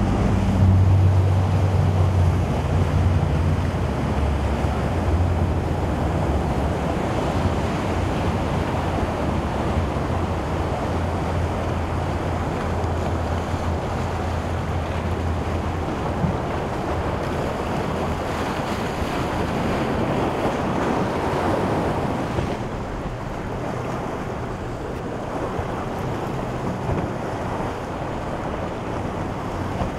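Waves and surf breaking, with wind buffeting the microphone, while a boat engine runs with a low steady hum for about the first half; the overall noise eases slightly after about 22 seconds.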